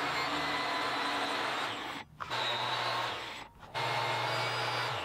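Biscuit joiner motor running steadily as it cuts slots for wooden biscuits in maple and plywood. The sound drops out briefly twice, about two and three and a half seconds in, then runs again until it stops at the end.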